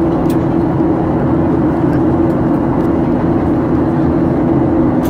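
Steady cabin noise inside a Boeing 737-800 in flight: the drone of its CFM56 engines and rushing air, with a steady low hum.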